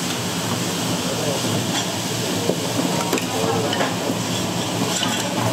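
Busy breakfast-shop kitchen: a steady hiss with occasional clinks of utensils and faint voices in the background.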